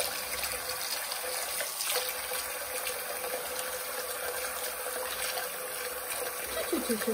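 Water running from a bathroom mixer tap into a sink basin, a steady splashing hiss, with a faint steady tone underneath.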